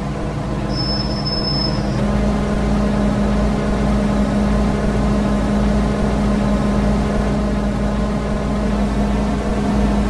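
MTR M-Train electric multiple unit standing at the terminus platform, its onboard equipment humming steadily on one low, even tone. A short, thin high-pitched tone sounds about a second in.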